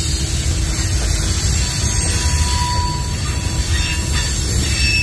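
Freight train running, a steady low rumble of rolling stock with a brief high tone about halfway through.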